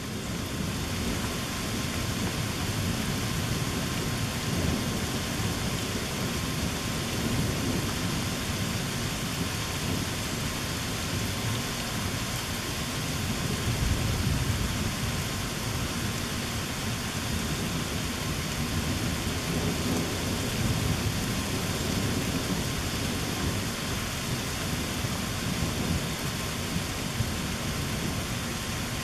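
Steady rain falling during a thunderstorm, with a constant low rumble of thunder underneath that swells loudest about halfway through.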